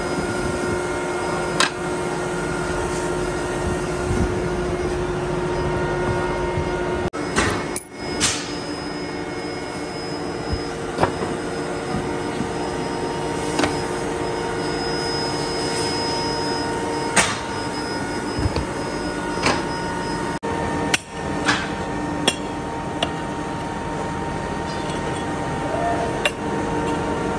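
Single sharp hammer blows on metal, irregular and a few seconds apart, over the steady hum of a running machine.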